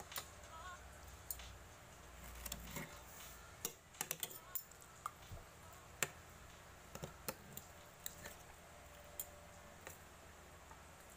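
Irregular light clicks, some in quick clusters of three or four, the sharpest about six seconds in, over a faint steady hum.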